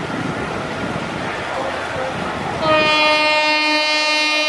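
Electric locomotive horn of a WAP-4 hauling an express sounds one long steady blast, starting abruptly about two and a half seconds in as the train approaches. Before it, steady rain hiss.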